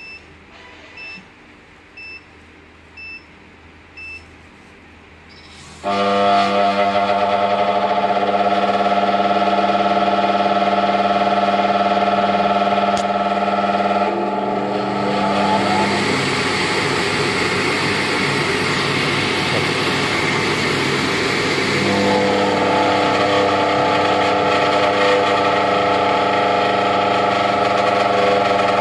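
Five short beeps about a second apart, then a motorized delivery system starts up and runs at full speed with a loud, steady multi-toned mechanical drone. In the middle stretch it turns rougher and noisier before steadying again. The drone is the abnormal noise (異音) being checked.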